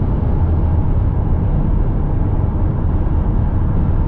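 Steady road and engine noise from a vehicle driving at highway speed, heard from inside the cabin.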